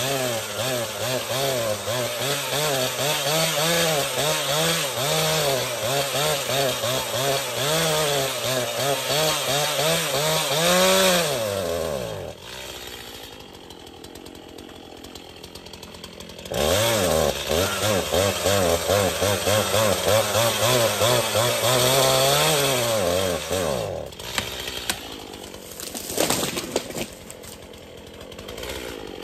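Gas chainsaw cutting a dead pine trunk, its engine pitch rising and falling under load. It drops to idle about twelve seconds in, revs and cuts again for about six seconds, then idles, with a few sharp knocks near the end.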